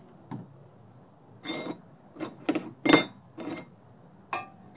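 A series of short metallic clinks and knocks as tools and steel pieces are handled on a steel workbench, the loudest about three seconds in.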